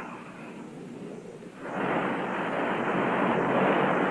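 Turboprop aircraft in flight: a steady rush of engine and propeller noise that becomes clearly louder a little under two seconds in.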